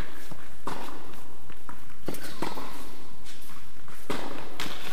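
Tennis rally in an indoor tennis hall: several sharp, echoing knocks of a tennis ball struck by rackets and bouncing on the hard court, with shoes moving on the court surface.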